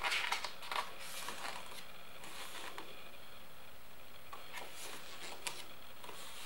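Paper pages of a hardcover photo book being turned by hand: brief rustles and light flicks in a few clusters, the longest right at the start.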